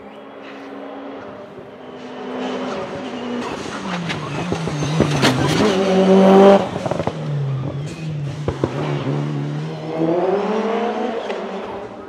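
Turbocharged 4G63 four-cylinder of a tuned Mitsubishi Lancer Evo at full attack uphill, its pitch falling and climbing again several times as it approaches and passes close, loudest about six seconds in. A few sharp cracks come as it passes.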